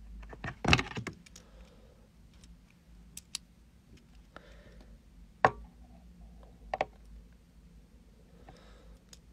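A few scattered clicks and knocks from small objects being handled, the loudest cluster about a second in, with single sharp ones later on.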